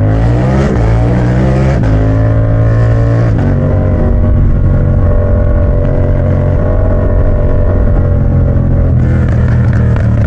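Yamaha MT-07's parallel-twin engine running loud through a straight-pipe exhaust under acceleration: the pitch climbs, drops sharply at gear changes about two and three and a half seconds in, then runs at a steady cruise.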